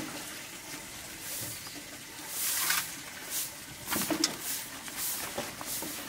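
Baked leaf wrapping rustling and crinkling in short bursts as hands pull the parcel open, with a few soft crackles and knocks against the steel plate about four seconds in.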